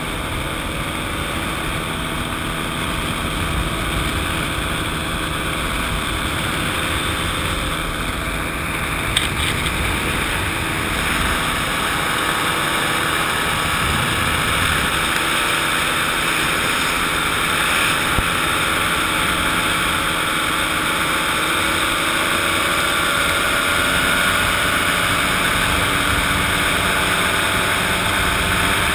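Fresh Breeze XCitor paramotor trike's engine and propeller running steadily in cruising flight, heard from on board.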